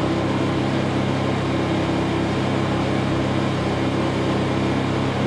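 Two Honda portable generators running steadily at a constant speed, their engines warming the oil ahead of an oil change.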